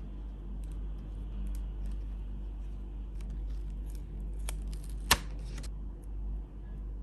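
Clear photopolymer stamps and their plastic backing sheet handled against an acrylic stamp block: scattered small clicks and crinkles of plastic, with one sharp click about five seconds in, over a steady low hum.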